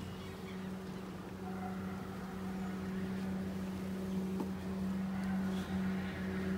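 Honeybee swarm humming at the swarm trap: a steady low buzz of many bees, growing a little louder toward the end.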